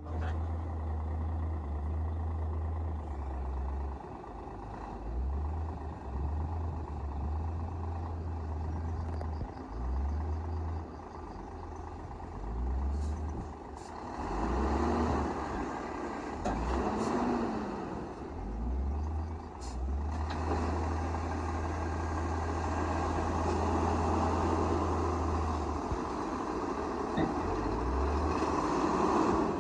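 Heavy diesel earthmoving machinery running, most likely the bulldozer at work: a continuous engine rumble with mechanical clatter. The engine note rises and falls a couple of times a little past the middle.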